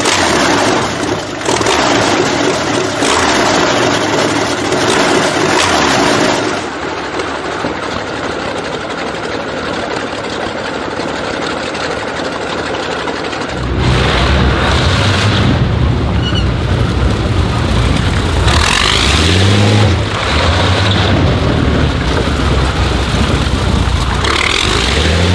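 Brutus BMW's 46-litre V12 aircraft engine running loud. In the second half it becomes a deep rumble with several short blips of revs that rise and fall.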